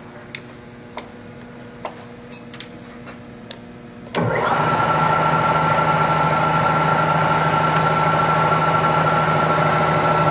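A handful of sharp clicks, then about four seconds in the 2 hp spindle motor of a Bridgeport Series II Special milling machine starts and runs steadily with a hum and a whine.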